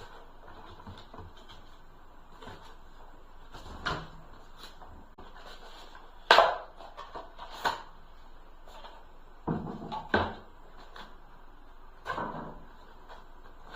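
A series of short clunks and knocks from objects being handled in a small room, about six over the stretch, the loudest a little past six seconds in.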